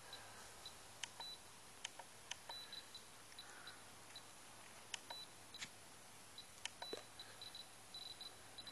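Faint, short electronic beeps, all at one high pitch and coming at irregular intervals, mixed with scattered sharp clicks: an RC transmitter's key beeps as its settings are changed, while the model helicopter sits idle.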